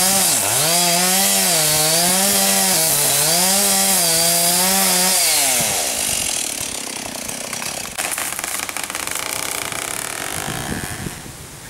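Chainsaw cutting into a tree trunk, its engine pitch rising and dipping as the chain bites, until the throttle is let off about five seconds in and the engine winds down and fades. After that a softer rustling hiss, with a single sharp crack about eight seconds in.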